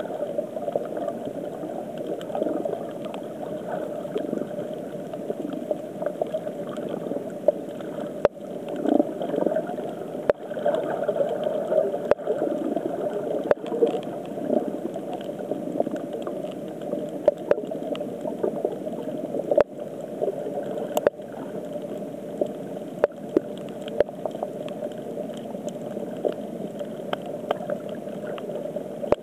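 Underwater ambience heard through a submerged camera: a steady rushing water noise that swells and fades a little, with about ten sharp clicks scattered through it.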